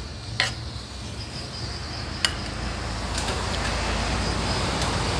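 A metal spoon clinks a few times against ceramic plates while eating, over a low rumble that grows steadily louder.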